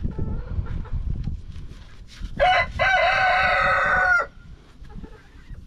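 A rooster crows once about two and a half seconds in: a short first note, then a long held one that cuts off near the four-second mark. Before it, a gloved hand rustles and presses loose sand in a tyre.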